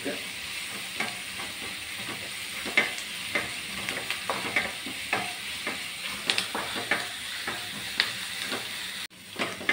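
Chopped onions sautéing in hot oil in a non-stick kadai, sizzling steadily while a wooden spatula stirs and scrapes through them with irregular light clicks. The sound cuts out for an instant near the end.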